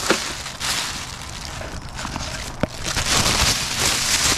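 Black plastic garbage bag rustling and crinkling as it is handled amid brush and dry leaves, loudest in the last second or so, with a couple of sharp clicks.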